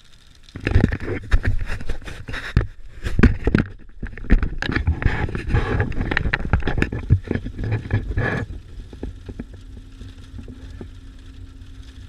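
Loud, irregular knocking and scraping clatter close to the microphone for about eight seconds, then it stops and a steady low vehicle hum is left.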